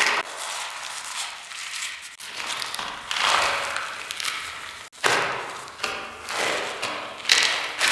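Fresh blocks of gym chalk being crushed and crumbled, a series of crunches, each trailing off in an added echo.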